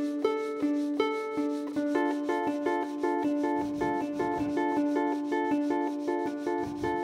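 Concert harp playing a repeating plucked figure; about two seconds in it turns into a quicker, denser run of notes.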